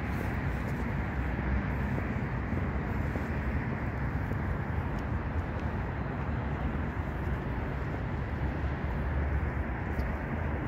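Steady outdoor city ambience: a low, even rumble of distant traffic, with a few faint ticks.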